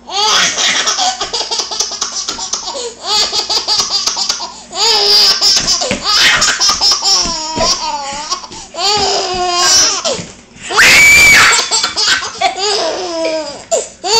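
Baby laughing hard in repeated bursts of belly laughter, set off by screams. About eleven seconds in a long, loud, high-pitched scream rings out for about a second.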